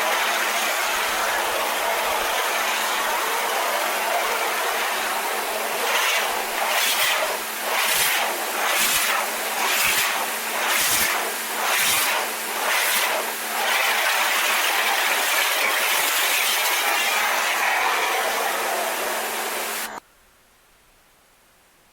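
Pressure washer spraying water onto corrugated tin, over the washer's steady motor hum. For several seconds in the middle the spray swells and fades about once a second, then everything cuts off suddenly near the end.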